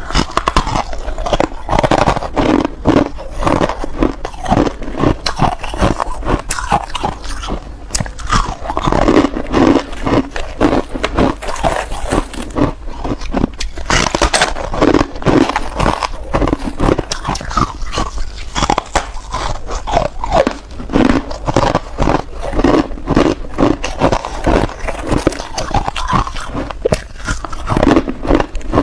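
A person biting and chewing soft white ice: a dense run of crunches and crackles over steady, rhythmic chewing.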